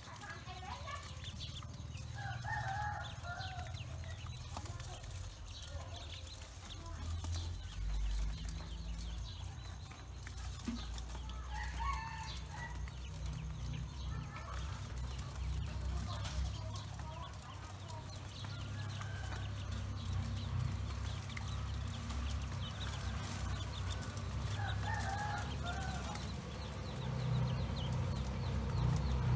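Pekin ducklings peeping and pecking at seed in an aluminium bowl, with a few louder fowl calls at about 2, 12 and 25 seconds in, over a low steady rumble.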